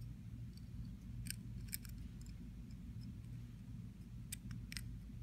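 Small sharp metallic clicks as a gold-tone metal pocket watch necklace is handled and turned over in the fingers, in two short clusters, about a second in and near the end, over a faint low hum.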